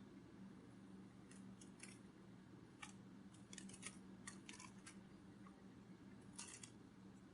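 Very faint, irregular soft clicks, some in quick little clusters, over a low steady hum.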